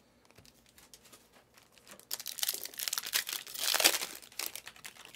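Plastic wrapping crinkling and tearing in quick bursts, starting about two seconds in and loudest near the four-second mark.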